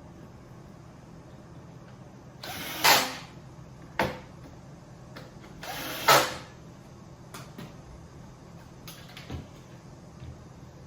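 Two screws driven in with a power driver, two short bursts a few seconds apart, each building to a peak as the screw seats, with a sharp knock between them and a few light clicks of panel handling later.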